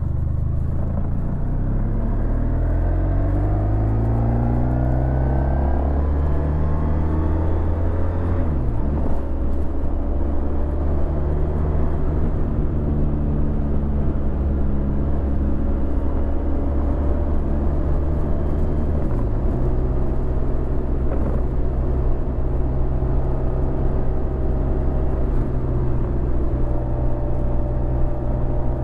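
2016 Honda VFR1200X Crosstourer's V4 engine through an Akrapovic titanium exhaust, under way. The revs climb for about eight seconds, drop sharply at an upshift, and hold steady, with another drop and shift about nineteen seconds in before a steady cruise.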